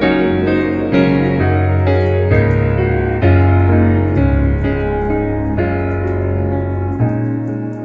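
Background piano music: slow chords and a melody, with a few faint clicks that may be fire crackle beneath it.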